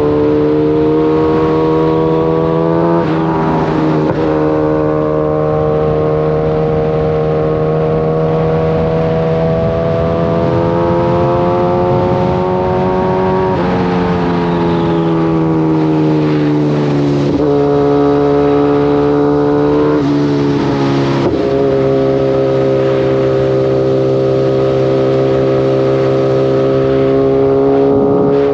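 Kawasaki ZX-14's inline-four engine running under way, its note climbing slowly and then dropping sharply several times, as with gear changes.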